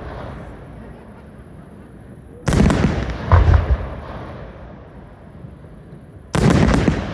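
Aerial firework shells bursting: two loud booms close together about two and a half seconds in, and another near the end, each followed by a long echoing fade.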